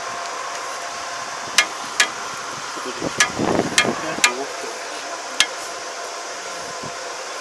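About five sharp metal clanks, a second or so apart, as the bent pointed crop divider on the header of an Iseki ER470 combine is handled and fitted back by hand. The clanks sound over a steady hum.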